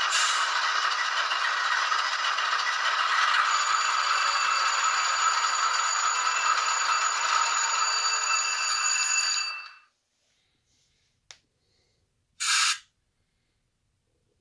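Diesel engine sound from an ESU LokSound 5 Nano decoder in an N scale Atlas Dash 8-40C, played through a tiny speaker: a steady, thin engine sound with almost no bass that fades out about ten seconds in. A single click and a short hiss follow near the end.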